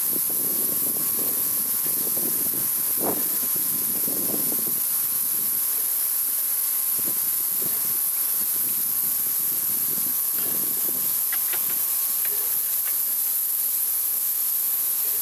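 Steady hiss of steam escaping from a standing E2-class steam locomotive built in 1907. Uneven wind rumble on the microphone sits beneath it, with a few faint metallic clicks.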